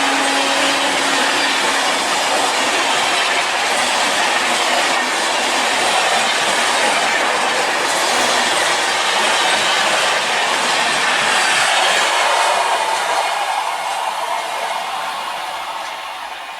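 Express passenger train passing at speed: a steady rushing roar of coaches, with wheels clattering over the rail joints. A locomotive horn note trails off in the first second, and the roar starts to fade about three seconds before the end as the train moves away.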